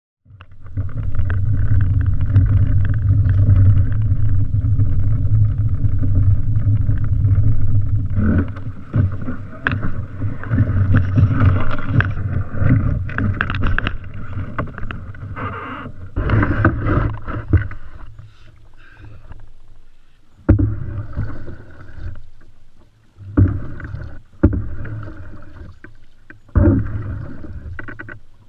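Open canoe being launched and paddled. It starts with a steady low rumble of wind on the microphone, then irregular knocks and scrapes against the hull as the canoe is pushed off and boarded, then paddle strokes splashing in the water about once every two seconds.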